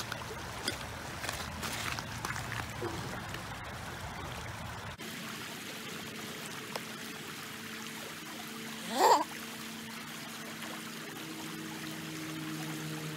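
Shallow creek water trickling and running over rocks. Early on there are scattered splashing steps through the water. About nine seconds in comes one short, rising squeak, the loudest sound.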